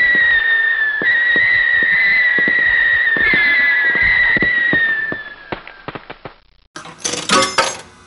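Long whistled notes, each starting a little higher and then sliding slowly down in pitch, with light clicks underneath. They fade out about five and a half seconds in. Near the end a fast, clattering run of sharp clicks starts suddenly.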